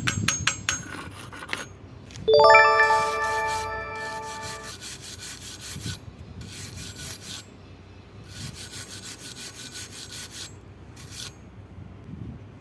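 Steel struck once, ringing for about two seconds. Then come several scrubbing, rasping strokes of a wire brush on steel, cleaning slag off a fresh weld.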